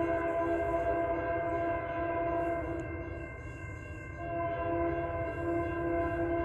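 Diesel locomotive's multi-chime air horn blowing a long chord, easing off about three seconds in and sounding fully again about a second later.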